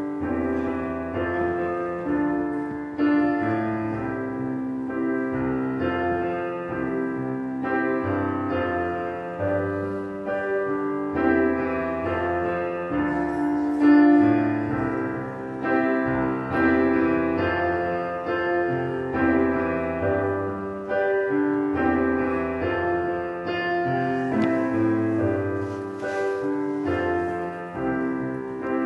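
Piano music playing, notes and chords struck one after another at a steady level.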